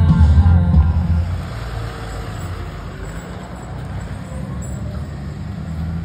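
Pop music with singing over heavy bass cuts off about a second and a half in. It gives way to the steady low rumble of a pickup truck's engine rolling by on the street.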